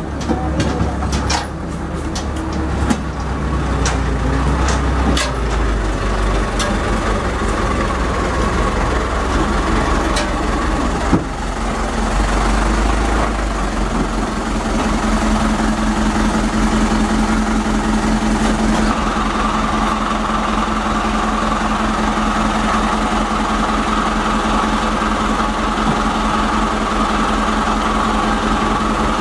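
A loaded light diesel truck creeping slowly onto a weighbridge, its engine running low, with a few sharp clicks and knocks in the first seconds. From about halfway the engine settles into a steady idle as the truck stands on the scale.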